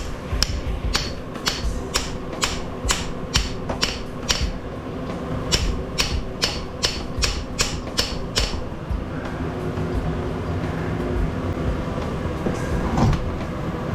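Hammer blows on the end of a 3 hp Baldor Reliance industrial electric motor, about two a second with a metallic ring, pounding to knock the end off the housing; they stop about eight and a half seconds in.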